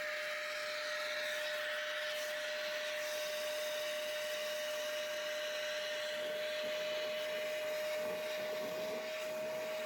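Shop vac running steadily with a constant whine, used to suck grit and debris out of clogged dishwasher parts.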